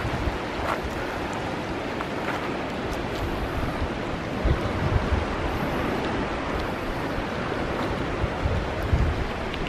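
Sea surf washing over a rocky shore, heard as a steady rushing noise, with wind buffeting the microphone in a few low gusts about halfway through and near the end.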